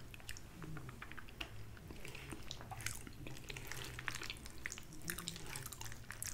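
Close-up mouth sounds of someone chewing soft food, mashed potatoes with gravy: many small wet clicks and smacks, with no words.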